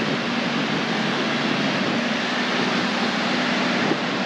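Toyota LandCruiser 4WD driving along beach sand, its engine a steady hum under a constant rush of wind and surf.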